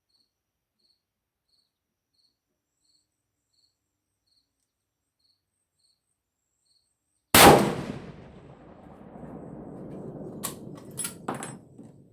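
A single .416 Ruger rifle shot from a Ruger M77 bolt-action guide gun, about seven seconds in, its report dying away in a long echoing tail; a few sharp clicks follow a few seconds later. Before the shot, faint insect chirping repeats about twice a second.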